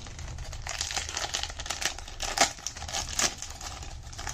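Wrapper of a sealed 1991 Score hockey card pack crinkling as it is peeled open and the stack of cards is pulled out, with a couple of sharper crackles about two and a half and three seconds in.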